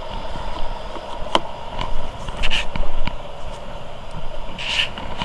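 Vehicle engine idling steadily, with a sharp click a little over a second in and short crunches of footsteps through wet brush and leaves near the middle and end.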